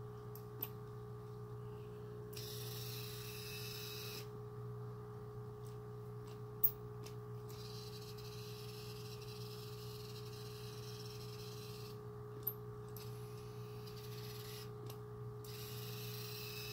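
Steady electrical hum with two level tones, and stretches of a few seconds of a higher whirring hiss as the Ibistek remote searchlight's motorised head is driven around from the control panel. Three sharp clicks come spread through it.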